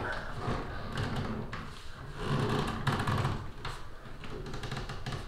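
Shower head being turned by hand onto a shower arm's threads, with a few light clicks and knocks of the fitting and rustle of handling.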